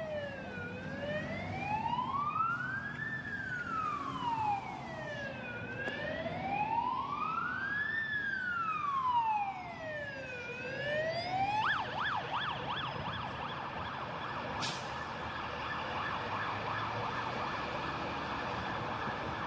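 Fire + Rescue NSW fire engine's electronic siren on a slow wail, rising and falling about every five seconds. About twelve seconds in it switches to a fast yelp that runs on.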